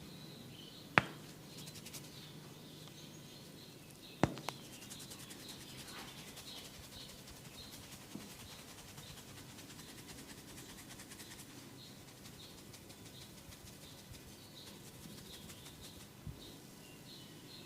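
Hands rubbing and scratching during a head and neck massage, with two loud sharp snaps, about one second and four seconds in, and a few fainter ones later. Small birds chirp over and over in the background.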